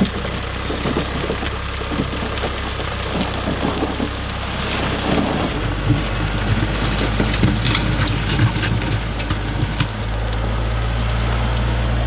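Branson 4820 compact tractor's diesel engine running while its front-loader bucket pours gravel and dirt onto a buried drum, stones clattering down in a dense rush. The engine hum shifts pitch about halfway through and again near the end.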